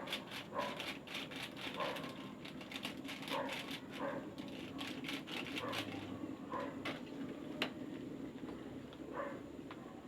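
Electric kettle at the boil, a steady bubbling rush with fast clicking in the first few seconds. A dog barks repeatedly over it, about once or twice a second, growing fainter toward the end.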